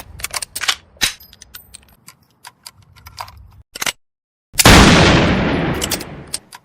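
Lever-action rifle sound effect: a string of sharp metallic clicks as the lever action is worked, then, about four and a half seconds in, a single loud shot that rings out in a long fading echo.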